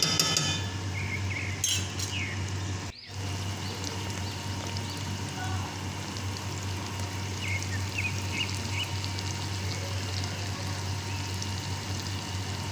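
Tomato paste sizzling as it fries in oil in a granite-coated pot, a steady hiss that breaks off briefly about three seconds in.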